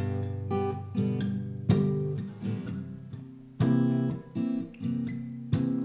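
Acoustic guitar strummed on its own, chords ringing, with a hard strum about every two seconds and lighter strokes in between.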